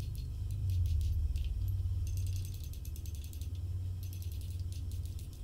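Red-hot forged steel guard on a sword tang giving off a dense, irregular fine crackling of scale as it cools, over a low steady hum.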